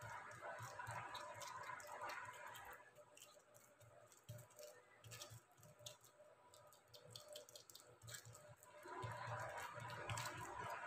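Faint, irregular soft taps and small clicks of fingers patting anarsa dough flat on an oiled plastic sheet.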